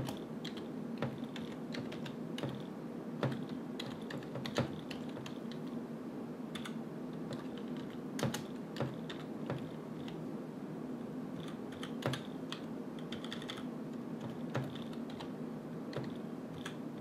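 Computer keyboard being typed on, irregular key clicks at an unhurried pace as a command line is entered, over a steady low hum.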